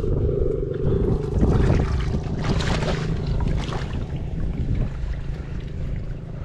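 Wind rumbling on the microphone, with a stretch of splashing from wading through muddy shallow water lasting about a second and a half near the middle.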